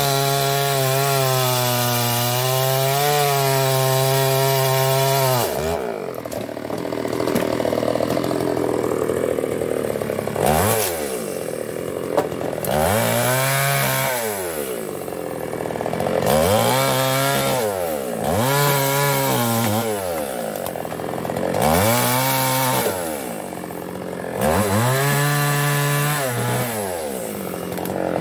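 Chinese-made two-stroke chainsaw held at high revs for about five seconds. The throttle is then released, and the saw is revved up and let back down about six times, each rev rising and falling in pitch over a second or two.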